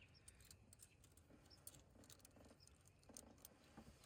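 Near silence, with faint scattered light clicks and taps.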